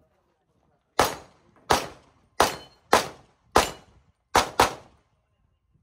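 Pistol shots: seven sharp reports starting about a second in, mostly about two-thirds of a second apart, with the last two fired as a quick pair.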